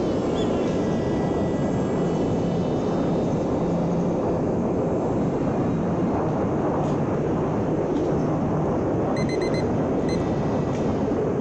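A small electric RC airplane, a foam glider converted to motor power, in flight: its motor and propeller buzz under a steady rush of wind noise, and the motor's pitch glides down near the start. A few short high beeps sound about nine to ten seconds in.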